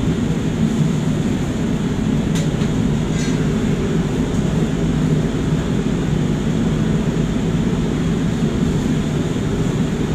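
Steady rushing noise of a commercial kitchen's extraction hood and gas wok burners running, with two short clicks about two and a half and three seconds in.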